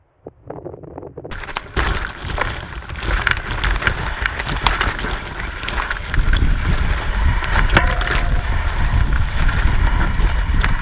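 Loud wind noise buffeting the microphone: a heavy low rumble with crackling that comes in about a second in and stays steady.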